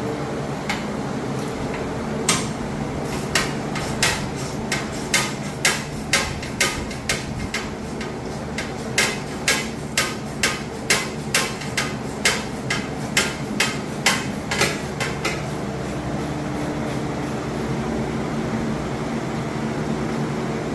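Hammer blows, about two a second, striking a car's old radiator support to knock it loose during removal. They start about two seconds in and stop some five seconds before the end, over a steady background hum.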